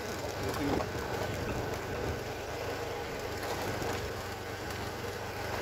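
Motorcycle riding at a steady pace along a gravel dirt road: a low, even engine hum with tyre and road noise.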